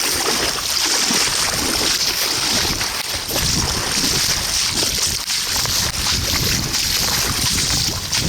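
Steady rush of river water, with wind rumbling unevenly on the microphone.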